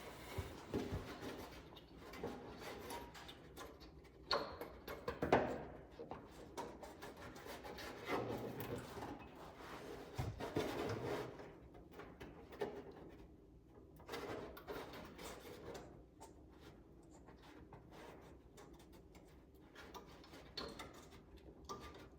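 Intermittent rubbing, scraping and knocking of hands and hardware against car body parts while a front spoiler is fitted, in bursts with quieter stretches between; the loudest knock comes about five seconds in.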